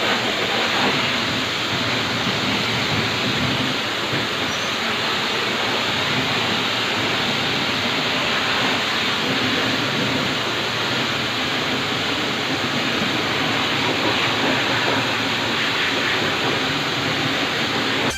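Pressure washer jet spraying water onto a cold-room evaporator unit's coil and fan guards: a steady hiss that does not break.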